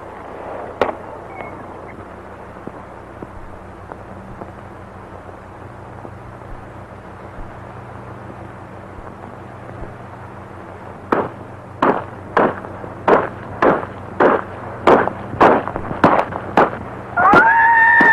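Low steady film-soundtrack hum, then a horse's hooves striking hard ground in a regular run of sharp clops about twice a second, ending in a loud horse whinny near the end.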